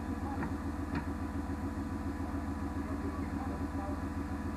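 Jeep CJ's stock Chevy 350 V8 idling steadily, an even low rumble.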